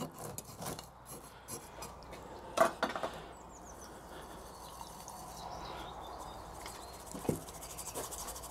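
A thin metal stirrer scraping and clinking against a glass jar of coarse sand soaked in water, stirred to drive out trapped air. Two louder knocks come a little under 3 s in as the jar is handled, and a single knock near the end.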